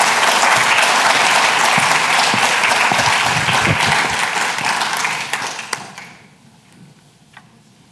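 Audience applauding, dense and steady, then fading away about six seconds in.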